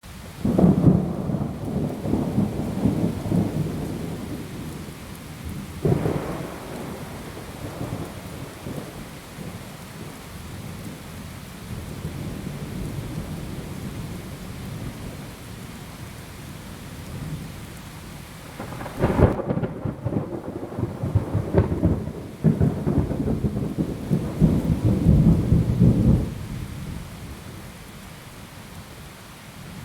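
Thunderstorm: loud rolling thunder begins almost at once, with a sharp crack about six seconds in. A second, sharper thunderclap comes about two-thirds of the way through and rolls on for several seconds before dying away. A steady hiss of rain runs underneath.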